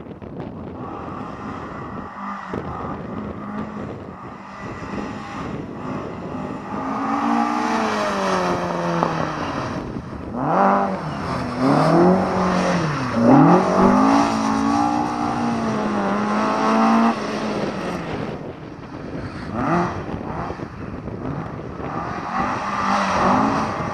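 Mk2 Ford Escort's engine revving hard as the car is drifted, getting louder about a quarter of the way in, with the pitch swooping up and down again and again through the middle, dropping back for a few seconds and then climbing again near the end.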